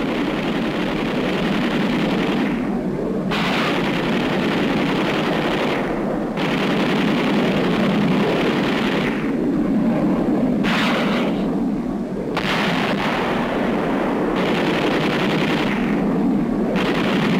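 Machine-gun fire in long, rapid bursts that break off and resume every few seconds over a steady low rumble, as in a strafing run.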